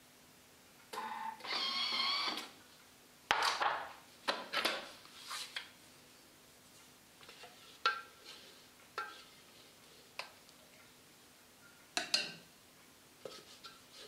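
Thermomix TM5 stainless-steel mixing bowl being handled as dough is scraped out with its spatula: a wavering squeal of scraping about a second in, then a series of sharp knocks and taps of the spatula against the bowl and blade, some with a short metallic ring.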